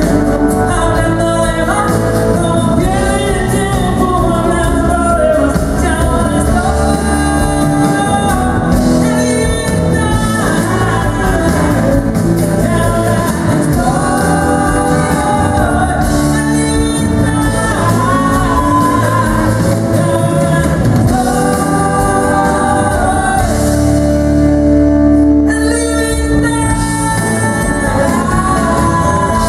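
A woman sings a pop song live into a microphone, backed by a band with keyboards. She holds a long note near the end.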